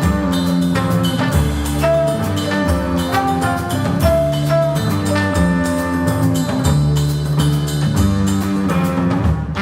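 Jazz quintet playing live: drum kit, double bass, vibraphone, electric guitar and trombone, with steady drumming under a bass line and held melody notes in a rock-tinged groove.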